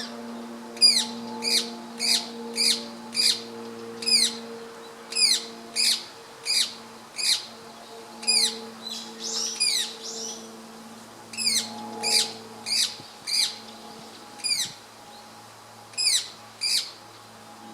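Female rose-ringed parakeet (Indian subspecies, Psittacula krameri manillensis) calling: a run of short, shrill calls, each dropping in pitch, about two a second. The calls come in bouts, with a pause and a softer, rougher note about halfway through.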